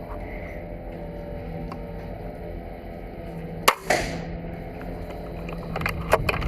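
A steady mechanical hum, with one sharp crack about halfway through that rings briefly, and a few lighter clicks near the end.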